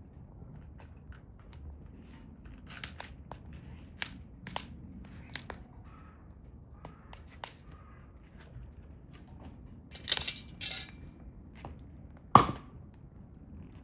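Hardwood fire crackling with scattered sharp pops and clicks. A brief rustling scrape comes about ten seconds in, and a single loud thump follows about two seconds later.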